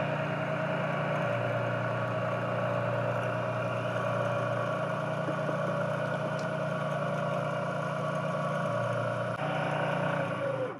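Milling machine running steadily while milling a flat on a turned part, with an even machine tone. The tone shifts slightly near the end, and then the sound cuts off abruptly.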